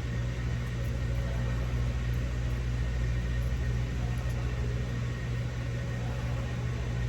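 Steady low mechanical hum of a running motor or fan in the background, unchanging, with no distinct clicks or knocks.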